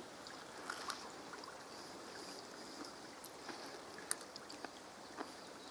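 A man chewing a bite of fried spelt patty, with a few soft mouth clicks scattered over a faint, steady background hiss.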